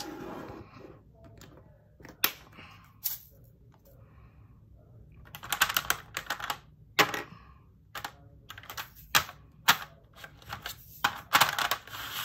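Small clear plastic drill-storage containers filled with round resin diamond-painting drills, clicking and clattering as they are handled and set into a bead storage tray. Irregular sharp clicks, with a dense clatter about halfway through and more again near the end.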